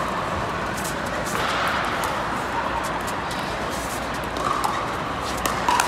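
Pickleball rally: paddles striking the plastic ball in a string of sharp pops, over the steady murmur of an indoor crowd.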